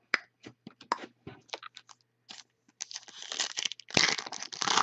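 Trading cards clicking lightly as they are handled, a series of short separate clicks, then from about three seconds in a dense crinkling and tearing of plastic wrapping.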